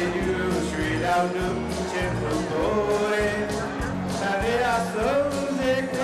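A man singing a song into a microphone, amplified over instrumental accompaniment with a steady beat.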